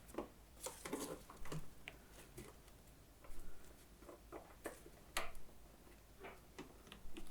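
Scattered light clicks and small knocks of a socket wrench working a generator's freshly loosened oil drain plug, coming in short uneven bursts.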